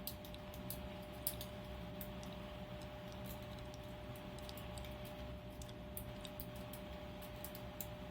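Faint, irregular metallic ticking of a city rake pick rocked up and down in the keyway of a Master Lock No. 3 padlock, scraping over the pin tumblers, over a steady faint hum.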